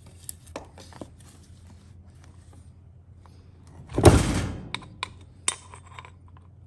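Engine parts and tools being handled on a workbench: scattered light clicks and taps, one louder noise lasting about half a second about four seconds in, then a few sharp ticks.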